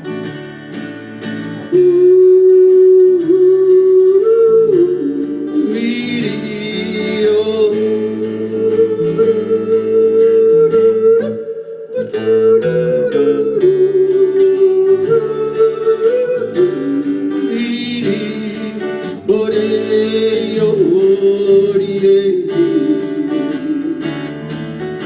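Live country band with guitar, piano, violin and drums playing an instrumental break between verses of a cowboy song, a held, gliding melody line carried over the strummed accompaniment.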